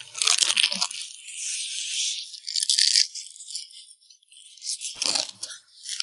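The crisp, glassy skin of pit-roasted whole lamb crunching and crackling as it is bitten and chewed. It is a dry, rattly crackle that cuts off abruptly about three seconds in.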